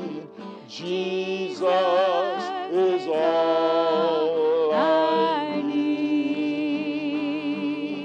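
A man singing a slow worship song with wide vibrato and sliding pitch, accompanied by acoustic guitar.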